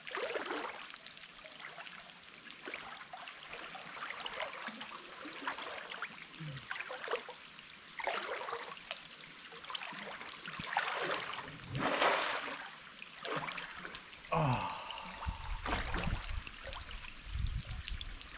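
Water trickling and splashing in a bush water hole, irregular and noisy, with a louder splash about twelve seconds in and a low rumble near the end.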